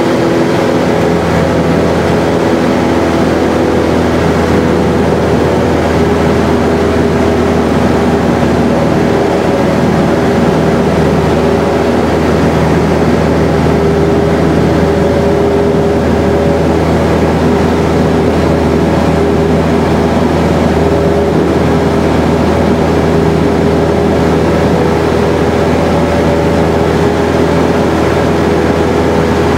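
Small propeller airplane's engine and propeller running steadily at climb power after takeoff, a loud, even drone heard inside the cabin.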